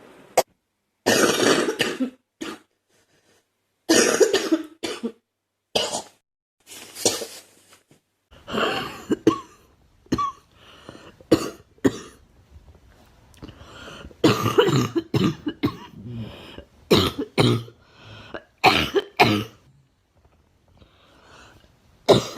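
A girl coughing again and again in fits: single coughs and runs of several coughs close together, with short pauses between the fits.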